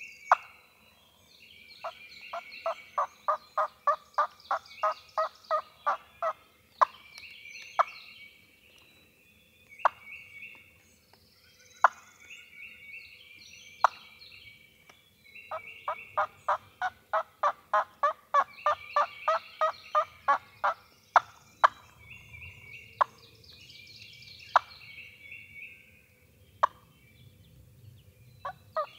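Wild turkey yelping: two long, even runs of yelps at about three to four a second, with single sharp notes scattered between them. Songbirds trill higher up throughout.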